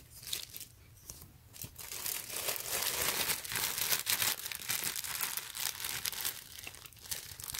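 Clear plastic poly bag around a folded T-shirt crinkling as hands grip and turn it, getting louder about two seconds in.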